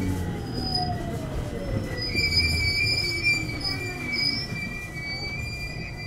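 521-series electric train braking to a stop: the traction motors' whine falls steadily in pitch over the first two seconds, then a high brake and wheel squeal rings from about two seconds in until the train halts at the end.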